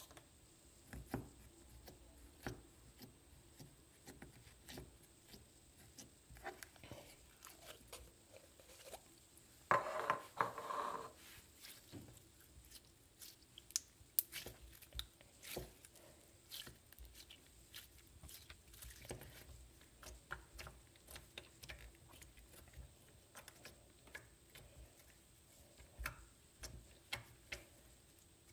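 Slime being squeezed and kneaded by hand, giving soft sticky clicks and small crackling pops, with a louder burst of crackling about ten seconds in.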